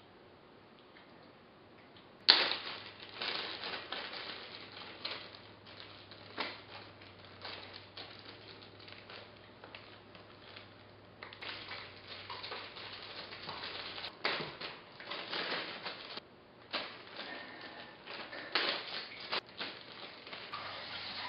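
Plastic bag crinkling and rustling as slime is kneaded inside it, with irregular crackles and clicks of plastic cups being handled. Near silent for the first two seconds, then it starts suddenly.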